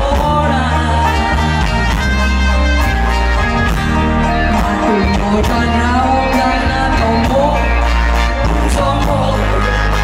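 Live band music with a woman singing lead through the PA, backed by keyboards, drums, guitar and a strong steady bass line, played loud without a break.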